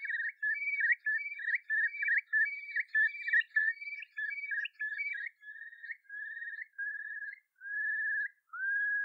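Clear whistled notes at a fairly high pitch: a quick run of short notes, about three a second, then slower, longer notes, the last one dipping and rising again.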